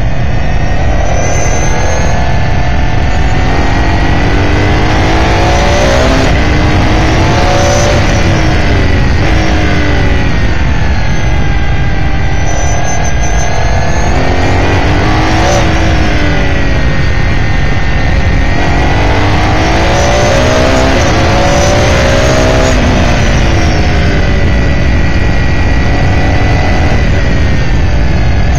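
An S5000 open-wheel race car's Ford Coyote 5.0-litre V8, heard on board, revving up and down through the corners, climbing in pitch and dropping back several times as the driver accelerates, shifts and lifts. A steady low rumble runs underneath.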